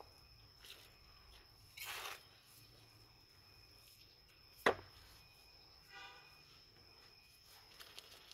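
Potting soil scooped with a garden trowel and tipped into a plastic flowerpot: a soft rustle of soil about two seconds in and a single sharp knock a little before five seconds, with small clicks near the end as the trowel is set down.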